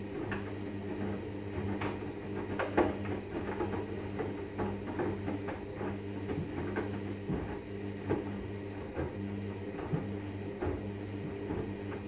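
Hoover front-loading washing machine in its main wash, the drum turning the wet laundry: a steady motor hum with irregular soft thuds and clicks as the clothes tumble and drop.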